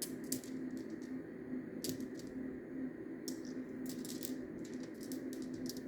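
Agate stones clicking and knocking against one another as they are handled, in scattered sharp clicks, some in quick clusters, over a steady low hum.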